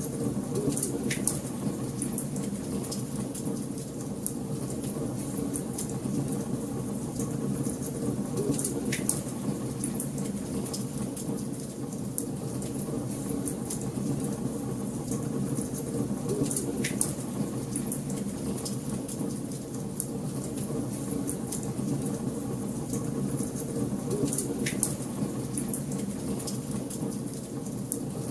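Wood fire crackling in a fireplace: a steady low rumble of burning with a dense scatter of fine crackles and a louder pop about every eight seconds.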